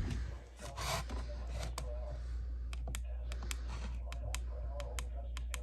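A run of irregular light clicks, a dozen or more, over a steady low hum.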